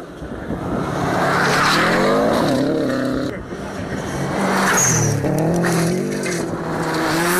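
Rally car engine at full throttle on a gravel stage, its pitch climbing and dropping several times with gear changes and lifts as the car approaches fast, over gravel and tyre noise.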